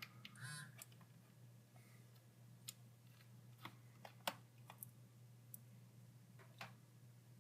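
Faint, scattered light clicks, about eight of them, of small laptop screws and a screwdriver being handled on a MacBook Pro's bottom case, over a low steady hum.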